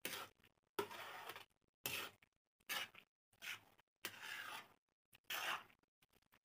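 A utensil stirring and folding a creamy, mayonnaise-dressed macaroni salad in a bowl: about eight short, irregular scraping strokes with brief gaps between them.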